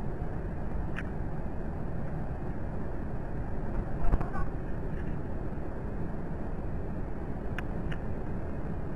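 Two house cats scuffling: a brief thump and scramble about four seconds in, over a steady low background rumble, with a few faint clicks about a second in and near the end.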